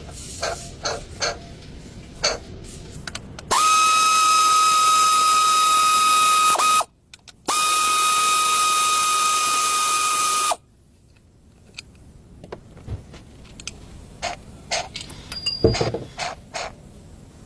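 A compressed-air tool running in two bursts of about three seconds each, a steady high whine over a hiss of air, each starting and stopping abruptly. Scattered clicks and knocks of metal tools come before and after.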